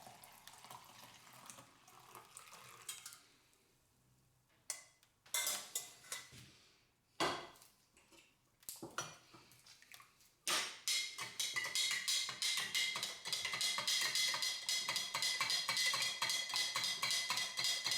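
Spoon stirring a liquid mixture in a container, clinking rapidly against its sides with a ringing tone. The clinking starts a little past halfway and runs on steadily; before that there are only a few faint, brief sounds.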